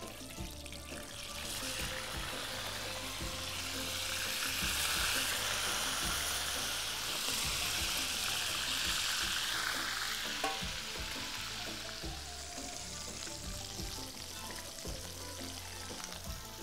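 Chicken pieces frying in hot oil in a frying pan, giving a steady sizzle. The sizzle swells soon after the chicken goes in and eases off after about ten seconds.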